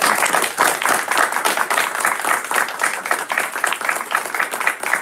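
Audience applauding: many people clapping steadily at the end of a talk.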